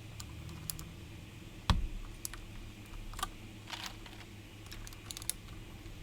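Keycaps being pushed onto and pressed on a mechanical keyboard fitted with Gateron Blue clicky switches: scattered, irregular clicks, with one louder knock a little under two seconds in.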